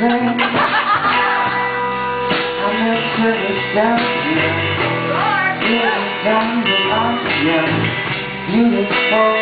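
A live rock band playing an improvised song, with a man singing into the microphone over the band.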